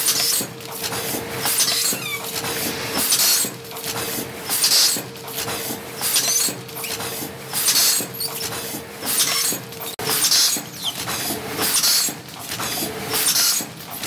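Automatic pouch filling and sealing machine running: a hiss of air about once a second, typical of pneumatic cylinders exhausting on each cycle, over a steady hum. There are a few short, faint squeaks, and the hum stops about ten seconds in.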